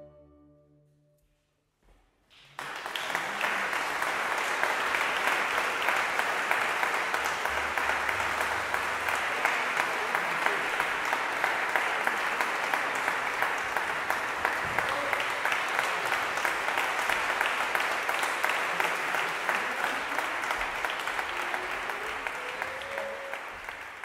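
The last chord of the French horn and strings dies away. After about two seconds of silence, the audience breaks into steady applause, which tapers off near the end.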